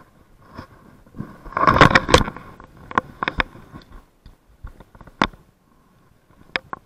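Close handling noise from the angler's clothing and fishing gear rubbing and knocking against a body-worn camera: rustling and scraping, loudest about two seconds in, then scattered sharp clicks and knocks, while a hooked fish is played and the landing net is brought out.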